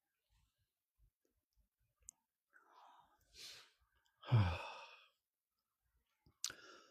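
A man's sigh: a breath in, then a voiced out-breath that falls in pitch, about four seconds in, with a short breath near the end.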